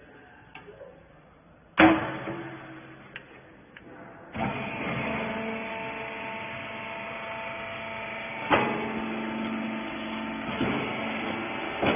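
A sharp metallic bang that rings briefly, then a few light clicks. About four seconds in, the baler's motor starts and runs with a steady hum, with a knock now and then.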